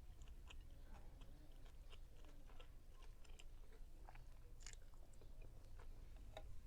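Faint, close-up chewing of a person eating, with soft irregular mouth clicks and smacks.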